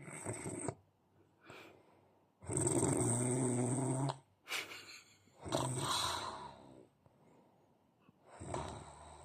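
A man snoring in heavy sleep after drinking too much, with about five uneven snores. The loudest and longest, a low pitched rasp of well over a second, comes about two and a half seconds in.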